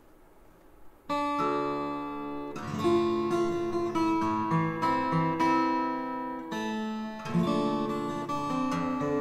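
Solo acoustic guitar played fingerstyle, starting about a second in, with plucked notes and chords ringing over one another.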